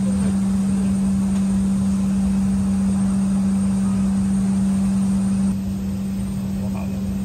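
Steady cabin hum of an Embraer ERJ190 airliner: one constant low tone over an even rush of air, stepping down a little about five and a half seconds in.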